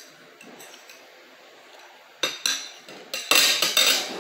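Knife and fork clinking and scraping against a glass plate while fried chicken is cut. The first two seconds hold only a few light clicks; sharp clinks start about two seconds in, and a dense spell of scraping comes near the end.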